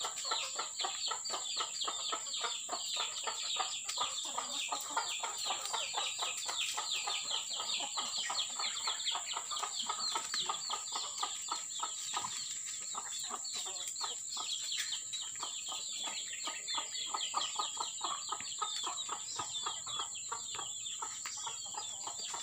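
Free-range village chickens, a kampung and bangkok cross, clucking in a quick, continuous run of short calls, over a steady high-pitched whine.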